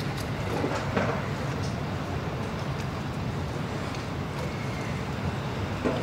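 Steady low hum of a polar bear enclosure. A polar bear moving in the pool makes a couple of brief splashes, about a second in and again near the end.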